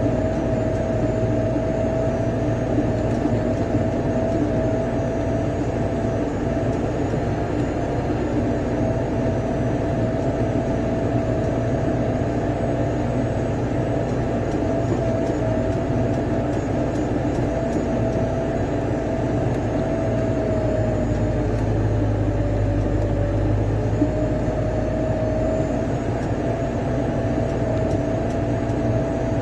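A vehicle engine running steadily under way, a low rumble with a steady whine above it that sags slightly in pitch now and then.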